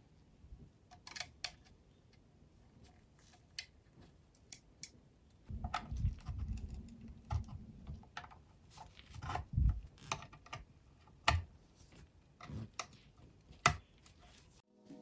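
Irregular sharp clicks and a few light knocks of small hard objects, spaced out with short pauses, heaviest in the middle stretch.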